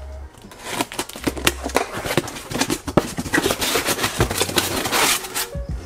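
Packing tape being torn off a cardboard box and the box pulled open: a dense run of crackling, ripping and rustling.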